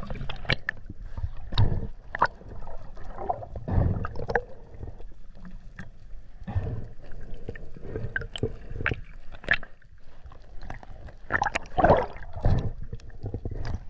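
Muffled underwater water noise picked up by a camera on a swimming freediver: a low rumble with irregular sloshing surges and small knocks.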